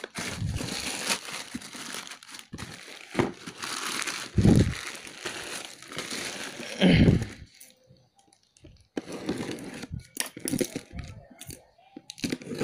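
Plastic bag crinkling and rustling as it is pulled off a cardboard box, with the box handled and two dull thumps about four and a half and seven seconds in.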